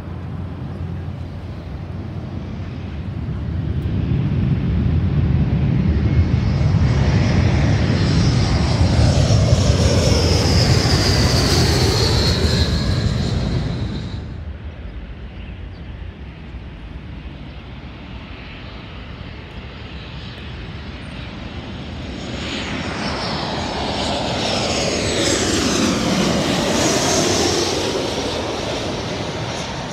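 Two jet airliners passing low overhead on final approach, one after the other. First a Delta Embraer 175 swells to a loud peak and passes with a falling high whine, cut off abruptly about 14 seconds in. Then a Southwest Boeing 737-700 with CFM56 turbofans builds up and passes overhead near the end, its pitch also sliding down.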